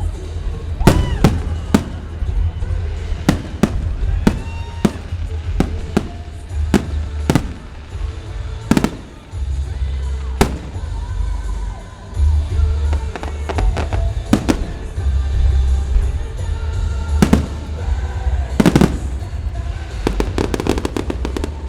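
Fireworks display: aerial shells bursting in sharp bangs at irregular intervals, with a dense rapid crackle of many small reports near the end.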